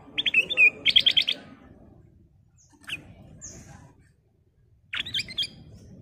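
A caged kutilang emas bulbul singing in short bursts of clear, quick whistled notes. Two phrases come in the first second and a half, the second a fast run of five or six notes, then a single note about three seconds in and another short phrase near the end.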